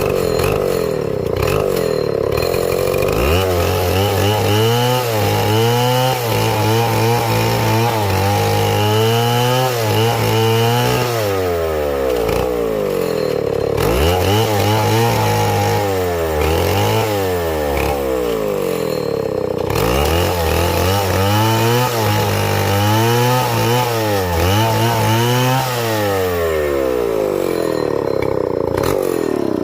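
Chainsaw engine running hard. It holds a steady high whine at times, and in between its pitch sags and recovers again and again.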